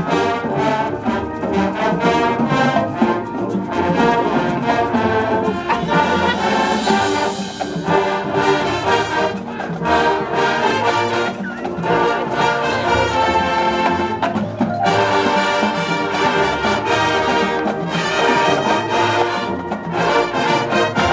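High school marching band playing a brass-led piece, the horns holding full chords.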